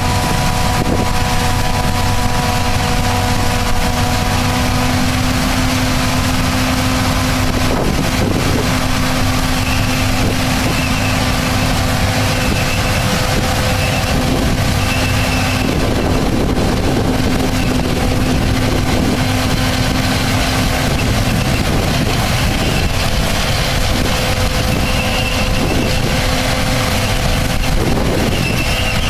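Peanut harvesting machinery and the tractor pulling it running steadily: a constant engine drone with a few steady whining tones over a loud rattling, rushing noise.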